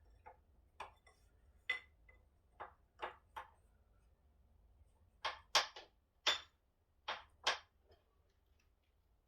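Hand tools clicking and lightly knocking against the metal parts of an old power hacksaw as it is taken apart. There are about a dozen sharp clicks in two bunches, one over the first three seconds or so and another starting about five seconds in.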